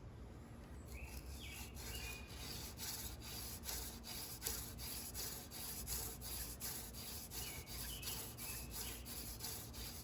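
Hand drill friction fire-making: a horseweed spindle spun back and forth between the palms, its tip drilling into a shortleaf pine fireboard. The sound is a hissing rub in quick repeated strokes, starting about a second in. Birds chirp briefly twice.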